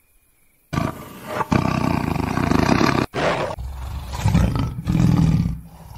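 Tiger roaring in several loud bouts, starting about a second in and breaking off abruptly between them.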